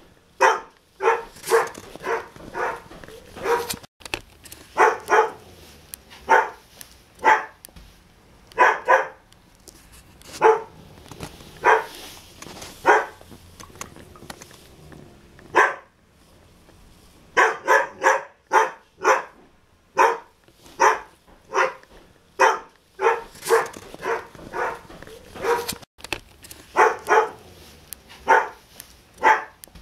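Dog barking over and over in runs of two to five barks, separated by short pauses. The barking breaks off abruptly and starts again a few times.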